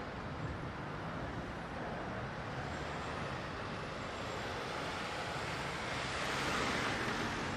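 Steady traffic noise from a jammed road with a Mercedes-Benz Sprinter minibus engine running close by; the noise swells around six seconds in as the minibus drives past.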